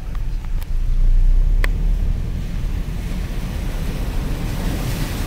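Low, steady car-cabin rumble of a car driving on a flooded road, with a couple of short clicks in the first two seconds. From about three seconds in, a rising hiss of water spraying and rushing under the tyres joins it.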